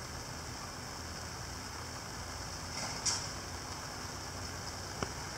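Steady hiss of light rain falling, with a brief louder hiss about three seconds in and a single sharp click near the end.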